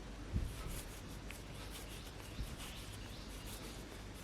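Hands rolling a ball of damp water-based clay between the palms, a faint soft rubbing, with a brief low bump about half a second in and another, weaker, a couple of seconds later.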